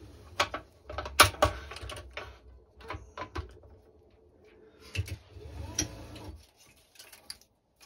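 Scattered clicks and taps from stringing a racketball racket: the string being threaded through the frame's plastic grommets, with the racket and string handled on a stringing machine. There are sharp ticks about a second in, around three seconds and around five seconds, then it goes quiet.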